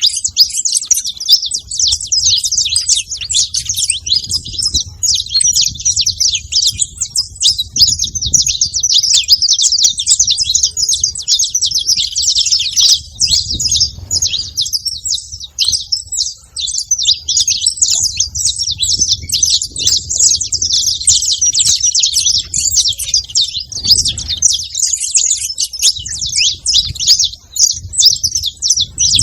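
Saffron finch singing a long, rapid run of high chirps and trills, almost without pause, with a few brief breaks.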